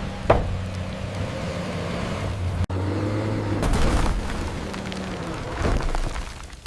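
Bulldozer engine running with a steady low drone, a single sharp crack about a third of a second in. After a brief cut about halfway, the drone gives way to a rush of crackling and heavy thuds like timber breaking and crashing down.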